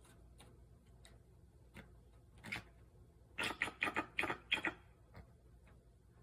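Bald eagle calling: a few faint high notes, then a louder one about two and a half seconds in, followed by a quick run of about six short high notes over the next second and a half.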